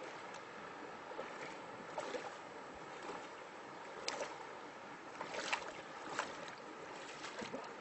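River water running steadily, with several irregular splashes of someone wading across through the current, the loudest a little past the middle.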